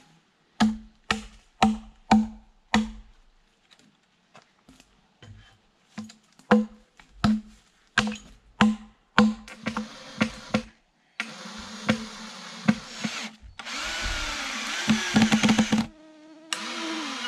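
Sharp knocks, about two a second, for roughly the first ten seconds. Then a power drill runs in several bursts with a wavering whine, driving screws into a spruce log to fix guide rails on it.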